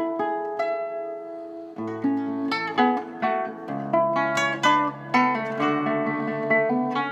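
Nylon-string classical guitar played fingerstyle: solo plucked melody notes over held bass notes, thinning to a few long ringing notes about a second in, then picking up again with steady plucked notes.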